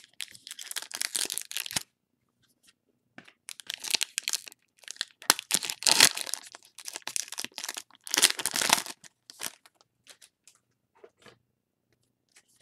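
Foil trading-card pack wrapper being torn open and crinkled by hand, in irregular bursts of crackling: a short spell at the start, a pause, then a longer stretch, loudest about halfway through, that fades to a few faint crinkles near the end.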